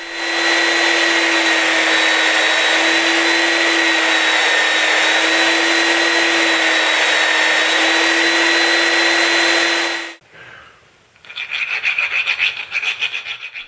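Belt sander running with the end of a steel-pipe barrel nut held against the abrasive belt: a steady grinding hiss over the motor's hum and whine, squaring and cleaning up the cut end. It cuts off about ten seconds in, and then a round file rasps back and forth inside a barrel nut in quick strokes, taking off the sharp edges.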